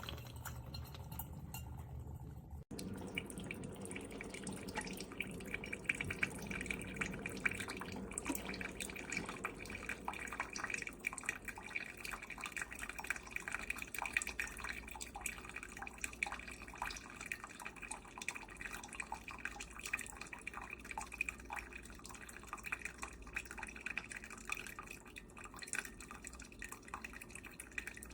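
OXO Brew 8-cup drip coffee maker brewing: hot water dripping and spattering in a steady patter of small drips, after a brief drop-out about two and a half seconds in.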